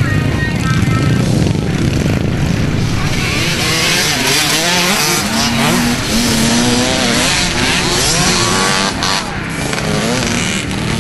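Several small youth dirt bike engines revving and pulling away together, their pitch rising and falling with the throttle.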